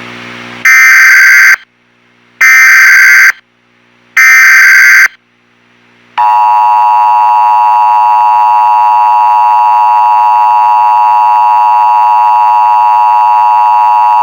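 Emergency Alert System alert sounds: a low buzz cuts off, then three loud, identical, harsh data bursts of about a second each with gaps between (the SAME header), then the steady two-tone EAS attention signal holding for about eight seconds.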